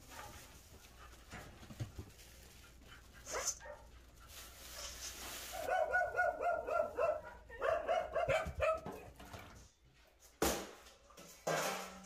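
A dog barking in two quick runs of barks a couple of seconds apart, then a single sharp knock.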